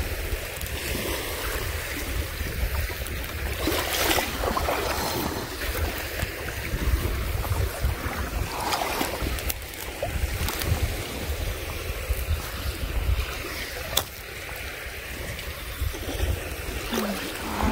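Wind rumbling on the microphone over small waves washing on a pebble shore.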